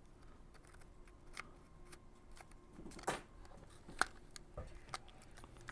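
Faint small clicks and ticks of a plastic opening tool prying around the seam of a PSP's plastic case, its clips working loose; the sharpest clicks come about three and four seconds in.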